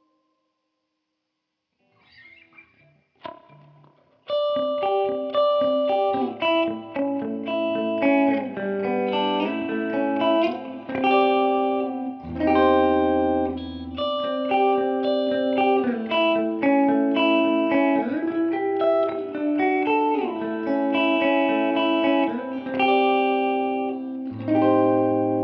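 Electric guitar, a Fender Jazzmaster with humbuckers, played clean through a simulated Fender Princeton Reverb amp: picked notes and chords ringing into one another. It comes in after about two seconds of near silence and a few faint string noises.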